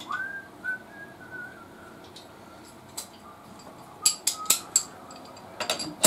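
A person whistling a few wavering notes through the first two seconds, with another short whistle near four seconds. Then a run of sharp metallic clicks of hand tools on the motorcycle.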